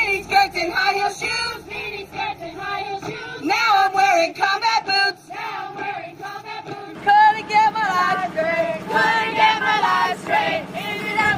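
A group of women singing a song together, their voices holding and sliding between notes.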